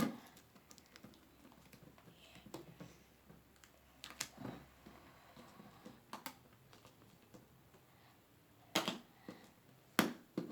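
Irregular clicks, taps and crinkles of plastic packaging on a Pokémon card pack being pried and pulled at by hand, with a few sharper snaps, the loudest near the end.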